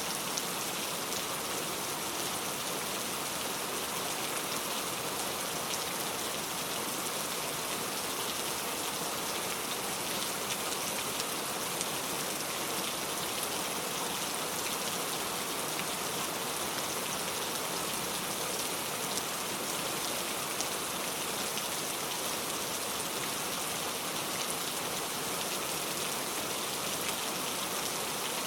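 Heavy rain falling steadily on a road: a dense, even hiss of rainfall with scattered sharper drop ticks and no thunder.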